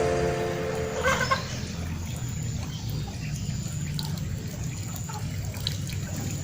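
Background music ending about a second in, then a small river trickling and flowing steadily.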